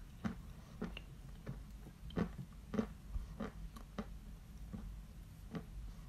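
Close-miked chewing of a mouthful of Barsuk ('Badger') lump chalk, with short crunches at a steady pace of about one every two-thirds of a second.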